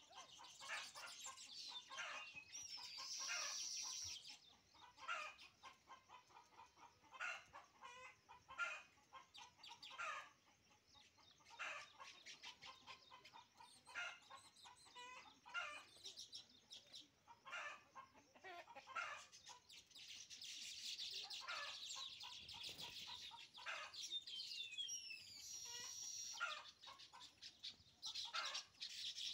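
Faint bird calls: a run of short clucks, typical of hens, with the high twittering chatter and thin rising-and-falling wheezy whistles of baya weavers. The chatter is strongest near the start and again from about twenty seconds in.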